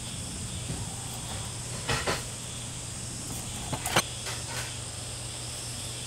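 A gloved hand pressing and squeezing salted oriental melon slices on a ceramic plate, with two brief soft handling noises about two and four seconds in, over a steady background of insects.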